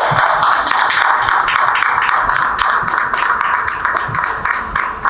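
A group of people clapping in quick, irregular claps, with music playing behind.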